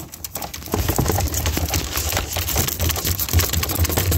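Irregular crackling and clicking of plastic wiring-loom connectors and cable being handled and plugged in, over a low rumble that starts about a second in.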